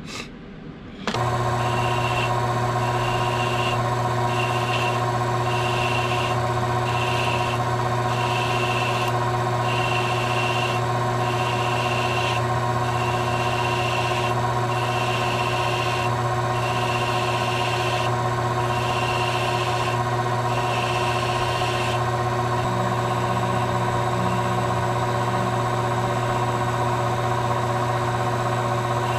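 Small benchtop metal lathe switched on about a second in and running steadily with a low hum, spinning a pool cue while its new leather tip is shaped by hand. A higher whine comes and goes in short stretches until about two-thirds of the way through.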